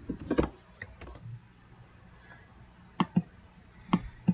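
Computer keyboard keystrokes and mouse clicks: a quick run of key taps near the start, then a few single sharp clicks in pairs about three and four seconds in.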